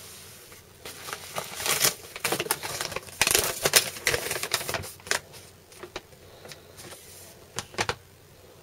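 Rummaging and handling papers at close range: irregular rustling with clicks and light knocks, busiest in the middle, ending with a couple of sharp clicks near the end.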